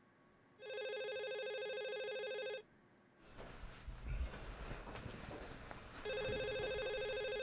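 Corded desk telephone ringing twice with an electronic ring, each ring about two seconds long. Rustling movement can be heard between the rings.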